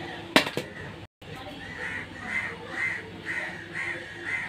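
A crow cawing repeatedly, about two short caws a second, starting about two seconds in. Near the start there are two sharp knocks.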